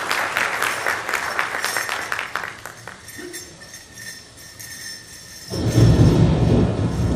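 Audience applause tapering off over the first three seconds or so. About five and a half seconds in, loud music starts abruptly, heavy in the low end, the accompaniment for a jingle dress dance.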